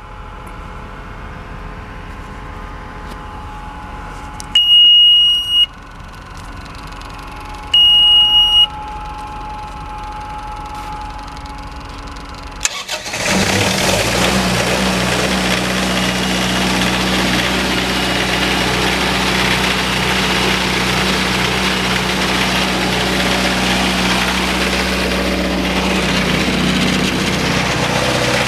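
Two loud, high electronic beeps from the generator controller. A little before halfway there is a click, then the Isuzu 4LE1 four-cylinder diesel of a 20 kW MTU standby generator starts quickly and runs steadily inside its sound enclosure.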